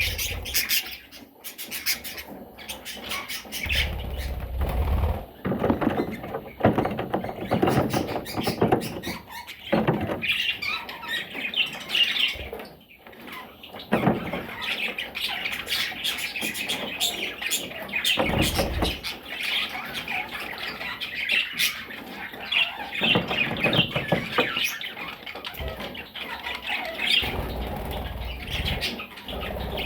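Baby parrots chattering and squawking, with scratching, rustling and wing flapping between the calls.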